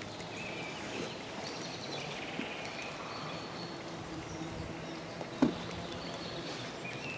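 Quiet woodland ambience with faint, short, high bird calls now and then over a low steady hum, and a single sharp knock about five and a half seconds in.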